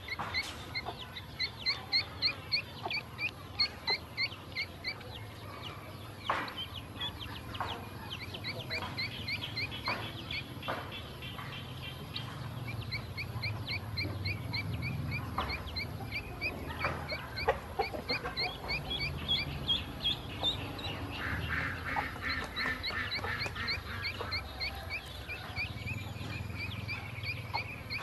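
Several ducklings peeping continuously in short, high, rising notes, a few each second, with scattered soft clicks and rustles among them.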